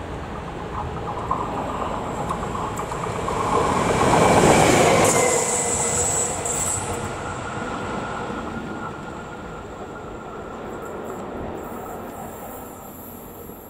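FS E464 electric locomotive running light past at speed. Wheel and rail noise builds to a peak about four to five seconds in, then fades as it moves away, with a faint high whine lingering.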